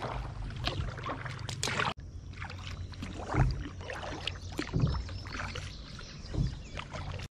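Kayak paddle strokes dipping and splashing in slow river water, about one stroke every second or so, over a steady low hum.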